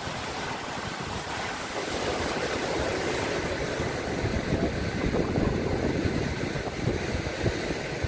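Wind buffeting the microphone in uneven gusts, a rough low rumble that gets stronger about two seconds in.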